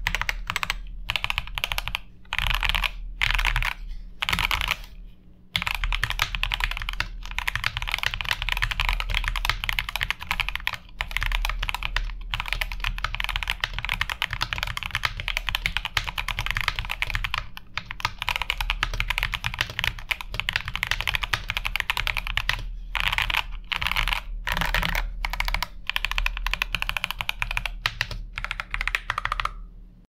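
Typing on a modded Keychron K12 60% mechanical keyboard: a fast, dense run of keystroke clacks with a couple of brief pauses.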